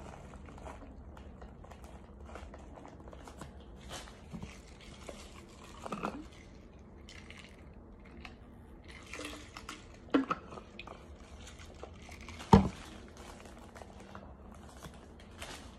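A person chewing and crunching on chunks of toasted starch, soft crackly crunches with a few sharper clicks, the loudest one about twelve and a half seconds in.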